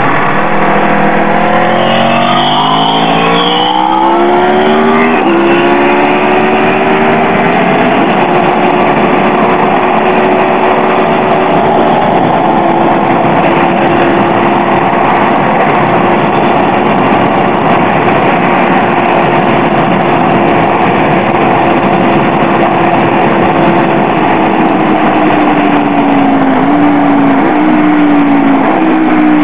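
Sport motorcycle engine under full throttle, climbing in pitch with two upshifts in the first eight seconds, then holding a high steady note down a long straight. It falls away near the end with short downshift blips under braking, over heavy wind rush on the onboard microphone.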